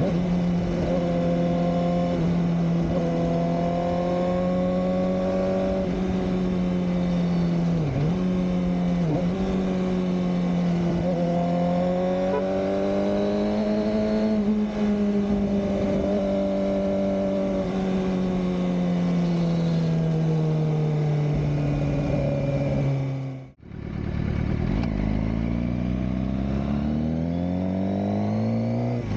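Suzuki GSX-R600 K7 inline-four engine running at steady revs on the move, with two quick dips in pitch about eight and nine seconds in. The revs ease down after about twenty seconds, the sound cuts out for a moment, then the engine pulls up with rising pitch near the end.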